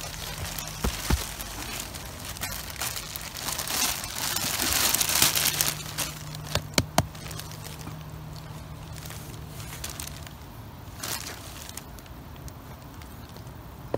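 Thin plastic carrier bag crinkling and rustling as it is handled, loudest in a long stretch a few seconds in, followed by a few sharp clicks and a shorter rustle later on.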